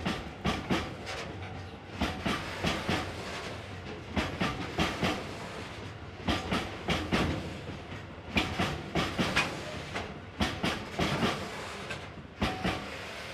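Steel wheels of a freight train's cylindrical hopper wagons clicking over rail joints as the wagons roll past, a cluster of about four clicks every two seconds over a steady rolling rumble. The last cluster comes just before the end, as the final wagon goes by.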